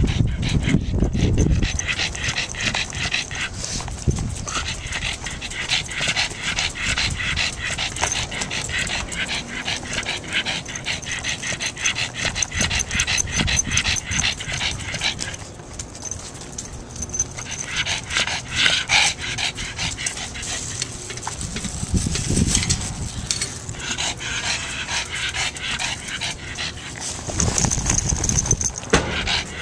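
A pug panting fast and steadily close to the microphone, pausing briefly about halfway through, with a few low rumbles on the microphone.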